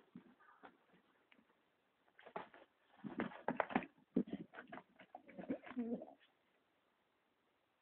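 Domestic pigeons cooing in a cage, in low bursts from about two to six seconds in, mixed with short knocks.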